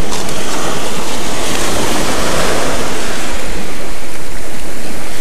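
Small ocean waves breaking and washing up onto a sandy beach in a steady surf noise, with wind buffeting the microphone.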